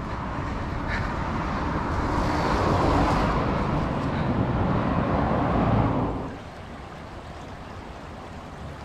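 Road traffic going by on a city street, swelling to a peak about three seconds in and easing off. About six seconds in it drops suddenly to a quieter steady rush of water flowing in a shallow canal.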